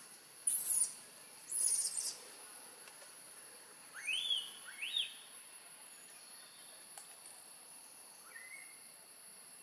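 Newborn long-tailed macaque giving two short squeaky cries that rise steeply in pitch, about four seconds in, and a fainter one near the end, over a steady high insect drone. Two brief hissy sounds come in the first two seconds.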